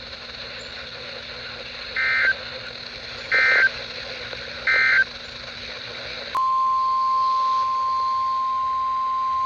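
EAS/SAME digital data bursts over NOAA Weather Radio: three short warbling bursts about 1.3 seconds apart, the end-of-message code closing the warning. A little past halfway a steady single-pitch NOAA Weather Radio alert tone begins and holds, over a constant radio hiss.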